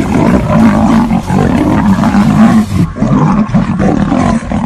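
A lion and a tiger roaring at each other without a break as they fight.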